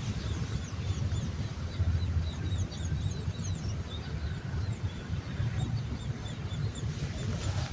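Small birds chirping: many short, high, rising-and-falling calls in quick succession through the middle stretch. Underneath is a steady low rumble.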